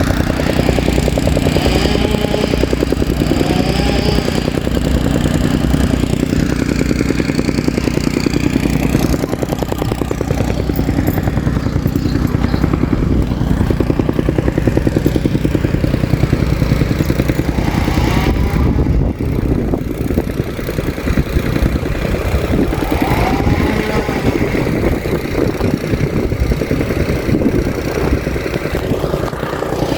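Soil compactor running: a steady engine drone under a fast, even pounding of the compactor against the ground.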